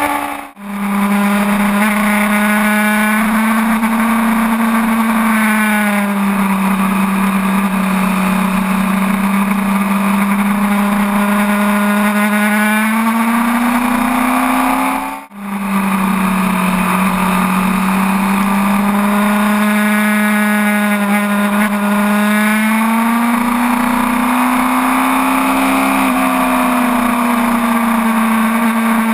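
Sport motorcycle's inline-four engine running at a steady cruise, its pitch slowly rising and falling as the throttle is rolled on and off through the curves, over a steady rush of wind. The sound drops out briefly twice, about half a second in and about fifteen seconds in.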